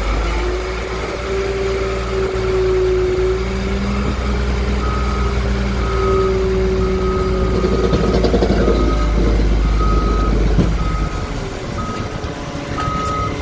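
Garbage truck's diesel engine and hydraulic pump running hard as the body is hoisted to tip the load, a steady low drone with a whine over it that drops off about three quarters of the way through. A backup alarm starts beeping about once a second a third of the way in.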